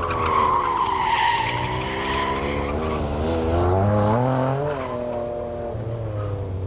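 Tuned Noble sports car of about 600 bhp driven hard through a turn. The tyres squeal loudly for the first two seconds or so while the engine runs under load. Around four seconds in the revs climb and then drop back, and the engine note settles steady near the end.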